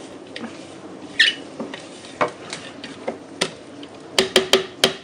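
A spatula stirring and scraping a coarse ground lentil mix in a plastic food processor bowl, with scattered clicks and knocks and a quick run of four sharp taps near the end.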